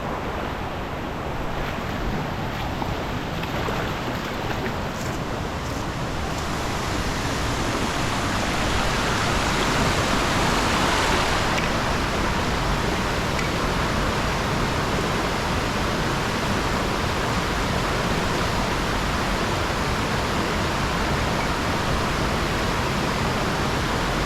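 Steady rush of a waterfall and river water, a continuous hiss that grows a little louder about seven seconds in.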